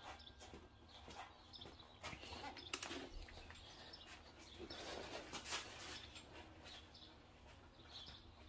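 Faint scattered clicks and creaks as a long breaker bar strains against a stuck Honda crankshaft pulley bolt, the pulley held by a belt wrapped around it; the bolt does not break loose.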